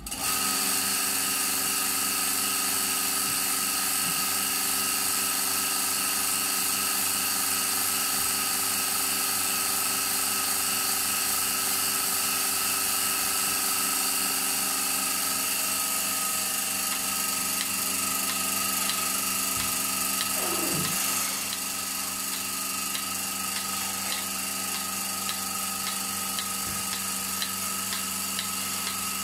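Milking machine running while a cow is milked: its vacuum pump drones steadily. From about two-thirds of the way in, the pulsator's regular clicking, about two a second, comes through.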